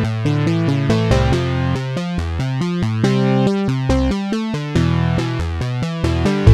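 Electronic music: a synthesizer plays a quick melody of short stepped notes over a bass line, with a louder, fuller section kicking in at the very end.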